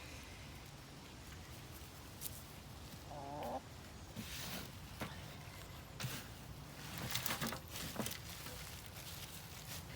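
A chicken gives a short call about three seconds in, over scattered scraping and rustling of soil and leaf mulch being dug through, with a few light knocks.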